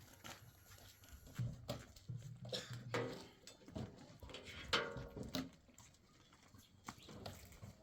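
Short animal calls, two of them pitched and clearer, about 3 and 5 seconds in, among scattered knocks and clatter.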